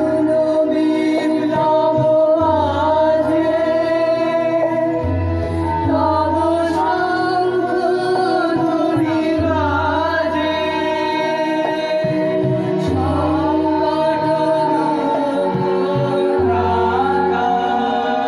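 Harmonium playing held chords under voices singing a slow melody with gliding, ornamented notes.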